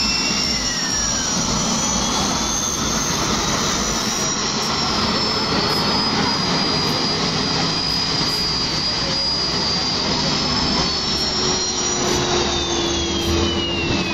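Jet engine of a jet-powered drag boat running at full power as the boat speeds away across the water: a steady rushing roar with a high-pitched whine that sags and climbs again in pitch.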